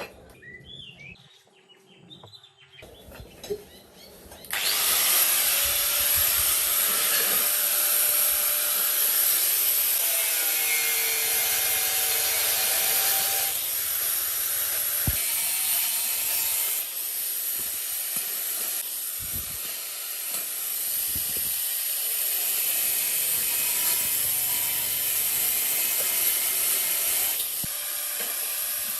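A power tool starts suddenly about four and a half seconds in, after a few faint knocks, and keeps running with a steady, harsh hiss.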